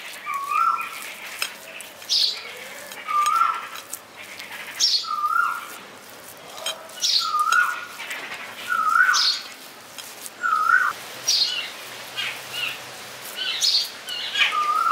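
A bird calling over and over: a short whistled call that rises and falls, repeated every second or two, with sharper high chirps between.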